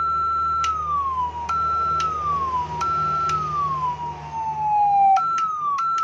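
Electronic siren amplifier sounding its horn tone through a loudspeaker. A single tone holds high, slides down, then snaps back up with a click each time the horn switch is pressed, about five times in all, quicker near the end. A low hum runs under it and stops about five seconds in.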